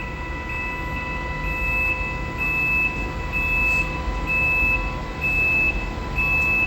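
Large commercial rolling door's motor operator running with a steady hum and low rumble, while its electronic warning beeper sounds about once a second.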